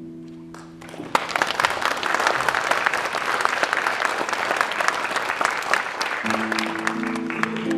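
The last chord of a violin and classical guitar duo rings out and fades, then the audience breaks into applause about a second in, a dense clapping of a large crowd. Near the end a few held instrument notes sound under the applause.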